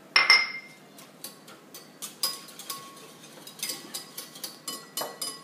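Metal spoon clinking against a glass bowl as a soy sauce and sherry marinade is stirred and sugar is spooned in. A sharp, ringing clink just after the start is loudest, followed by a string of lighter, irregular clinks.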